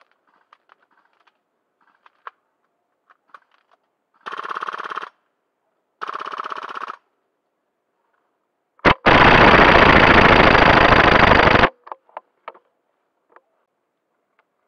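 Airsoft rifle firing on full auto: two rapid bursts of about a second each, then after a single click a much louder, close-up burst of nearly three seconds from a GHK AUG gas-blowback rifle. Faint scattered clicks sit between the bursts.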